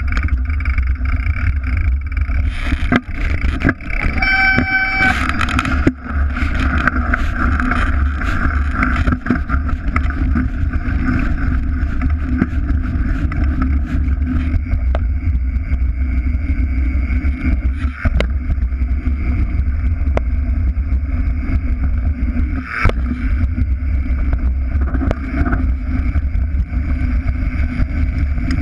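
Mountain bike riding over a rough dirt trail, heard from a handlebar-mounted camera: a steady rumble and rattle of the tyres and frame over the ground, with wind on the microphone and scattered knocks from bumps. A brief high squeal about four seconds in.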